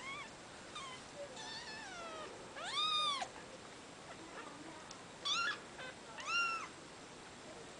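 A two-week-old kitten mewing while being held up in a hand: about six thin, high-pitched cries, each rising then falling in pitch, the loudest about three seconds in and again near six seconds.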